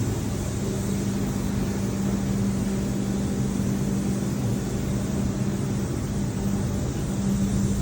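Steady machine hum with one constant low tone over an even hiss, unchanging throughout.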